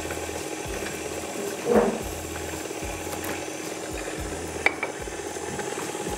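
Electric stand mixer running steadily as it beats butter and sugar, under walnuts being crushed with a wooden rolling pin on the countertop. There is a louder swell of crushing about two seconds in and a short sharp knock near the end.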